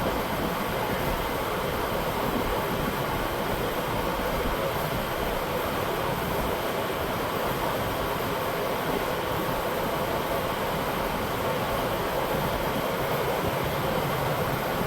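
Shop fan running steadily, a constant rushing noise with nothing else standing out.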